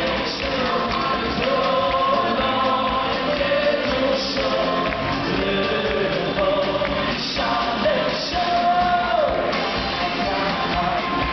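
Live band music with male vocalists singing into handheld microphones, backed by keyboard and percussion, with long held notes over a full, steady accompaniment.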